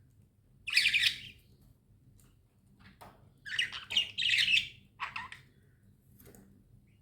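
Budgerigars calling: one short burst of calls about a second in, then a run of calls from about three and a half to five seconds in.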